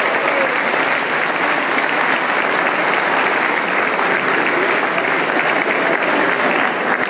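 Audience applauding, a steady, dense clapping that neither builds nor fades.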